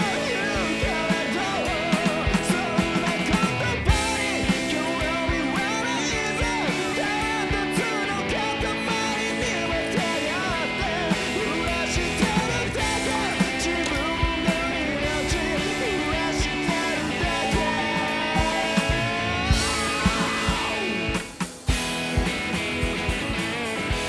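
Rock song with electric guitars, drums and a singing voice playing as background music.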